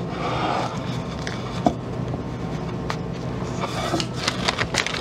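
Double-sided woodworking tape being unrolled and pressed down onto a wooden board by hand: a short rustle near the start, then scattered small clicks and knocks that come thicker near the end, over a steady low hum.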